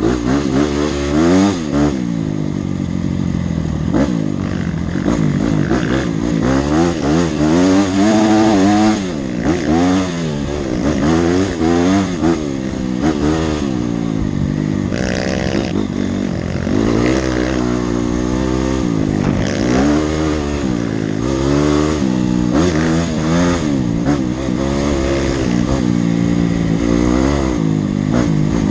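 Honda CRF dirt bike's single-cylinder four-stroke engine revving up and dropping back again and again as it is ridden along a rough trail.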